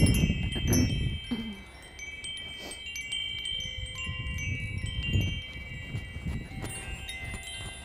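Chimes ringing: many high, overlapping tones that ring on, struck afresh now and then, over a low rumble that is strongest about the first second.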